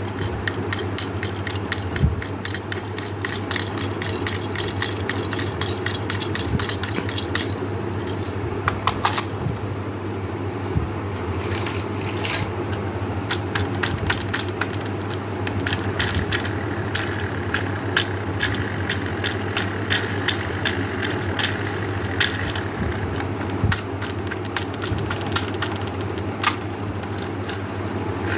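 Many small hard pieces clattering and clicking, densely for the first ten seconds and more sparsely after, over a steady low hum.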